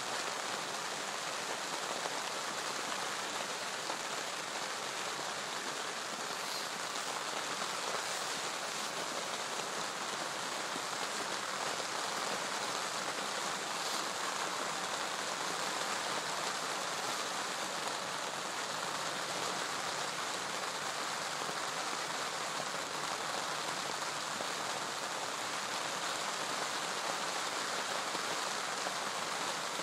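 Steady rain falling on a lake surface: an even hiss with no single drops standing out.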